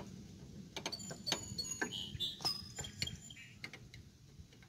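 Scattered light metallic clicks and clinks as a hand handles the parts and linkage under a Troy-Bilt TB30R riding mower's deck. The clicks cluster from about a second in and thin out toward the end.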